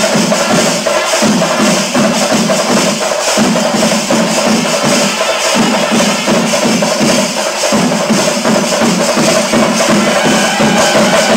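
Music with dense, fast percussion over sustained tones, loud and steady throughout.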